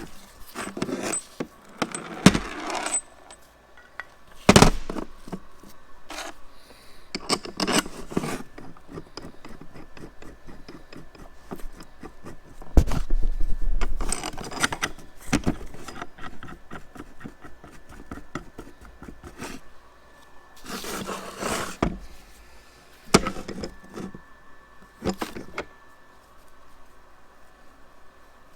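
Metal engine parts and hand tools being handled during engine reassembly: scattered clinks, knocks, rubs and scrapes. There is a sharper knock about four and a half seconds in and a longer, louder rubbing stretch around thirteen seconds in.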